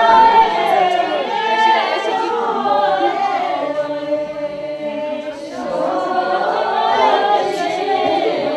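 A group of voices singing together without instruments. The singing thins out about halfway through, then comes back fuller.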